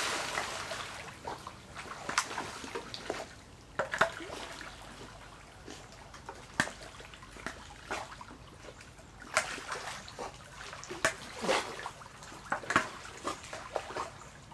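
Swimming-pool water splashed by a swimming labrador and a person. A wash of splashing fades over the first second or two, then scattered short splashes and sloshes follow.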